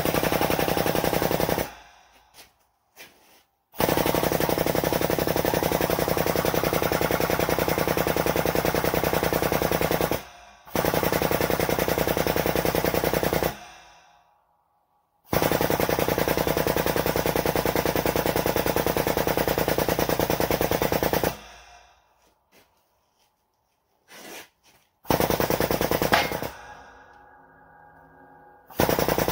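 Air-over-hydraulic jack on a shop press, its air pump chattering rapidly in bursts of several seconds with short pauses between, driving the ram down to flatten a steel bracket. Near the end there is a single sharp crack.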